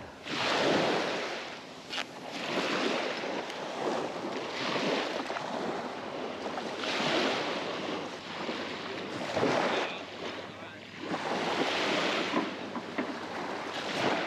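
Small waves washing up on a sandy shoreline, swelling and fading about every two seconds, with wind on the microphone.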